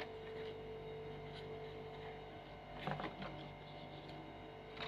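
Quiet handling of a coconut leaf strip and soft rice-flour dough, with one brief soft rustle about three seconds in, over a steady faint hum.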